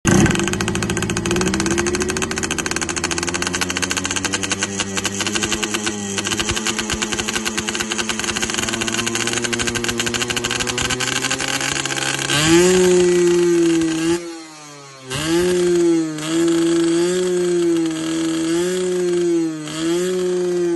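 Yamaha 125ZR single-cylinder two-stroke engine through a barrel (expansion-chamber) exhaust. For about twelve seconds it runs steadily with a dense, rapid rattle. Then it gets a strong ringing note and is blipped again and again: short revs rising and falling, with a brief dip near fourteen seconds.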